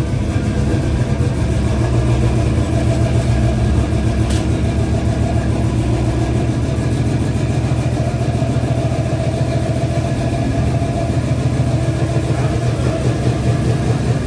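6.0 LS V8 engine idling steadily.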